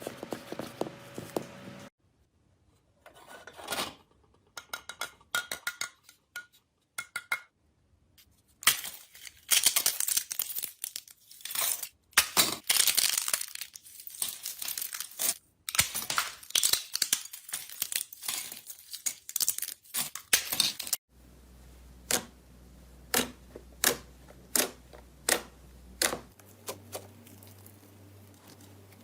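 Slime being squeezed, poked and pressed by hand, giving runs of quick crackles, clicks and pops. The sound changes at several cuts, densest and loudest through the middle and down to a few separate pops near the end.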